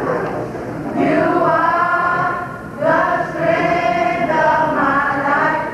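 A choir of school-age students singing together in two long held phrases, the first starting about a second in and the second just before three seconds in.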